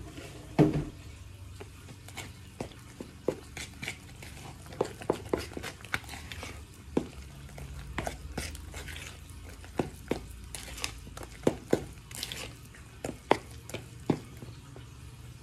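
A metal spoon stirring wet pancake batter of milk, melted butter and egg in a pot, clinking sharply and irregularly against the sides, a few times a second.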